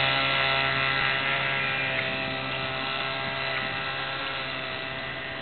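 Johnson 4 hp outboard motor running steadily under way on an inflatable dinghy, its drone slowly fading as the boat moves away.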